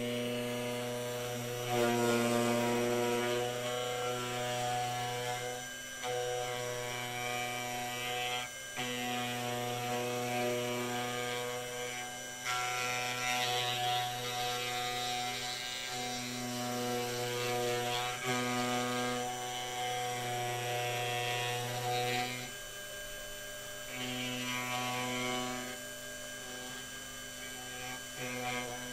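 Small bench milling machine's motor running steadily, its rotating cutter grinding away the hard epoxy potting on a USB security token. The steady hum dips briefly every few seconds.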